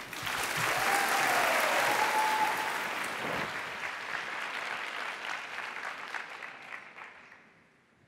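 Audience applauding, starting at once and dying away gradually over about seven seconds.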